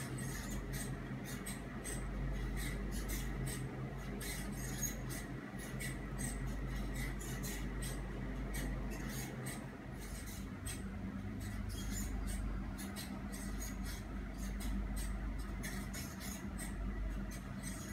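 A steady low hum with a rapid, irregular scatter of small, sharp, high clicks and ticks over it.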